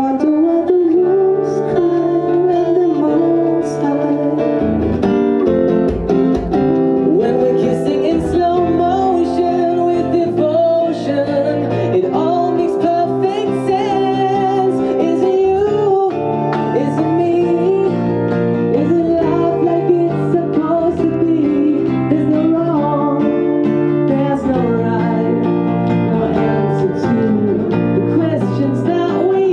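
Live song: a solo singer's voice carrying a melody over acoustic guitar accompaniment.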